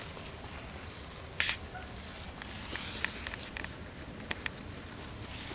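Caique parrot: one short, harsh burst of sound about a second and a half in, then a scatter of small clicks and taps.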